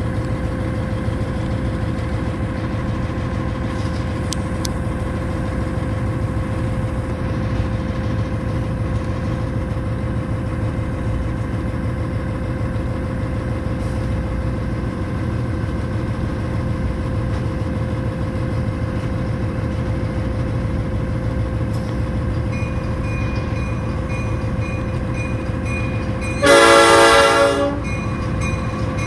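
Diesel locomotive running steadily as it rolls slowly along the track, heard from inside its cab. Near the end the locomotive's air horn sounds one short blast of about a second, the loudest sound here.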